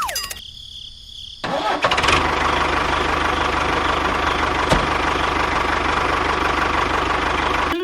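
A small motor running winds down with a falling pitch and cuts out, then starts again about a second and a half in and runs steadily.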